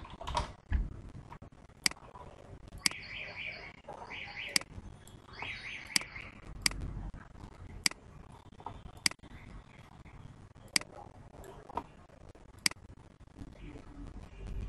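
Single sharp clicks from computer keys and a mouse, about one a second at an uneven pace, as text is typed in and then selected.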